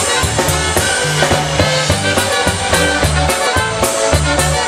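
Live polka band playing a polka with a steady beat, saxophone out front over keyboard and drums.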